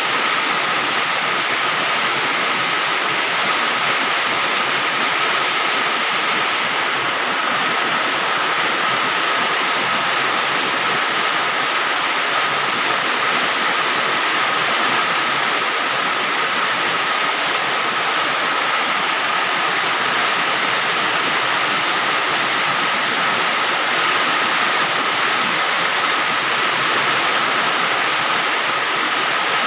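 Steady rain falling on a galvalume metal roof: a dense, even hiss of countless drops with no pauses or single hits standing out.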